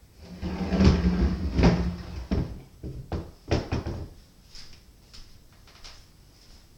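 Wooden knocks and thuds as a home-made birch didgeridoo is handled and laid down on a wooden table. They are loudest in the first two seconds and are followed by a few fainter clicks.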